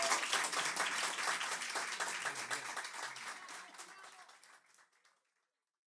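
Small audience applauding at the end of a song, the clapping fading out about five seconds in.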